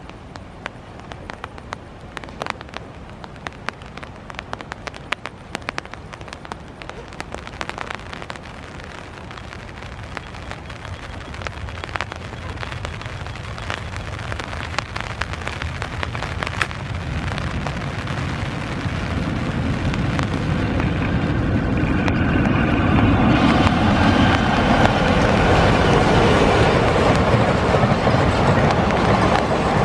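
Rain falling, with sharp drop clicks close to the microphone, as a diesel-hauled passenger train approaches and crosses a long railway bridge. Its rumble grows steadily through the second half and stays loud near the end.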